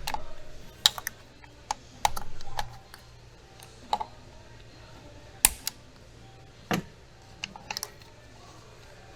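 Irregular sharp clicks and snaps of hands and a hand tool working on a car's wiring harness and its plastic connectors and clips, about a dozen in all, the loudest about five and a half seconds and nearly seven seconds in.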